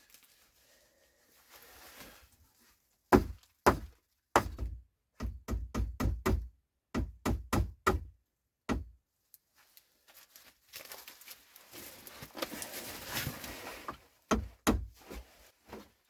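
Hammering on wood: about a dozen sharp knocks in quick runs, then a few seconds of scraping and rustling, then more knocks near the end.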